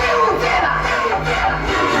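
Loud music played through a large sound system, with a melody line over sustained bass notes.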